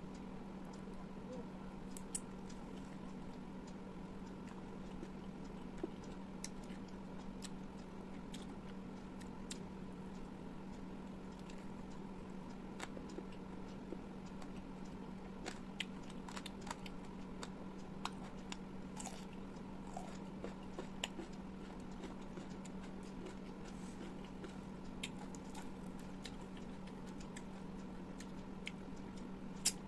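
Close-miked eating sounds: chewing with scattered sharp clicks and crunches, over a steady low hum.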